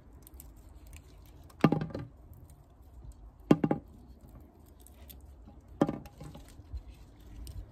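Picked cherry tomatoes dropped one at a time into a bowl: three separate knocks with a brief ring, about two seconds apart.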